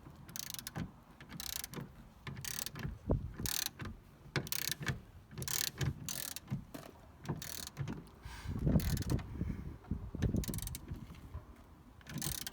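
Hand ratchet wrench clicking in repeated strokes, about once a second, as a seat belt anchor bolt is run in and tightened.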